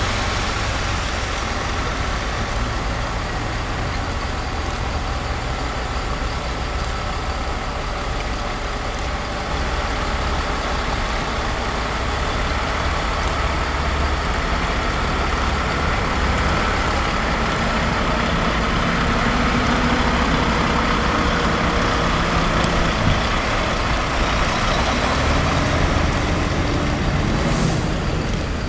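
Heavy lorries hauling wind-turbine blades pass slowly, their diesel engines running under a steady hiss of tyres on a wet road. The engine note rises in the last few seconds, and there is a short hiss near the end.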